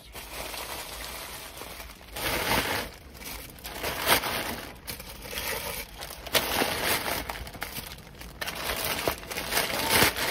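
Plastic packaging crinkling and rustling as it is handled, in irregular bursts.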